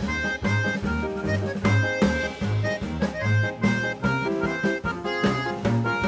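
Instrumental background music with a steady drum beat, a repeating bass line and a melody on top.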